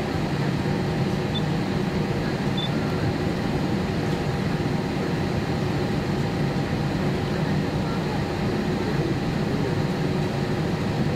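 Steady cabin drone inside an Airbus A320-232, its IAE V2500 engines running at low power as it moves slowly on the ground before takeoff, mixed with the cabin air-conditioning hum.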